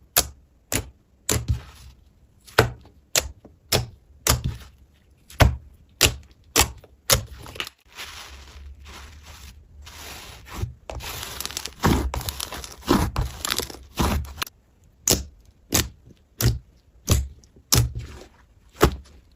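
Slime being worked for ASMR: a series of sharp cracks, about one every half second to second, with a longer stretch of continuous crackling midway through.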